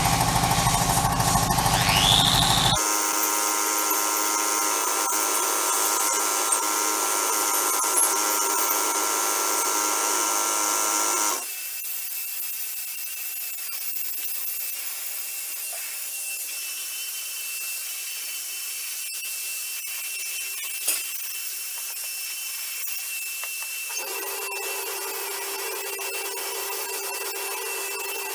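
A handheld power tool running steadily while gearbox parts are cleaned, in several stretches that change pitch and level abruptly.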